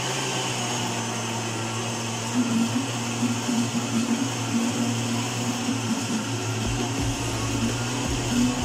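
Oster countertop blender running steadily, blending a thick liquid mixture: a steady motor hum with noise from the blade churning the mixture.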